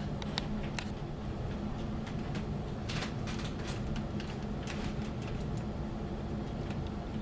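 Scattered light clicks of a laptop's keys and touchpad being worked, over a steady low hum.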